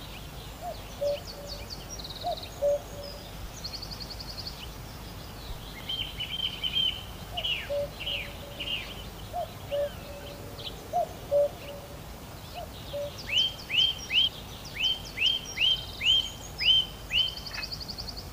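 Songbirds chirping and trilling, with runs of quick down-slurred whistles, about two a second near the end, and a few short lower calls underneath, over a steady hiss.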